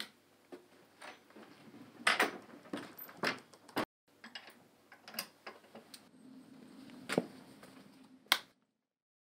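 A light switch clicking off, then a wooden plank door being shut and fastened: a run of clicks, knocks and metal rattles from the latch, hasp and padlock, ending with one sharp click near the end.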